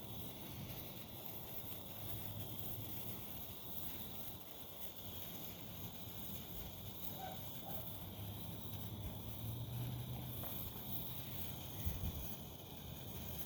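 Handheld sparkler burning with a faint, steady fizz, over a low background rumble, with a brief knock about twelve seconds in.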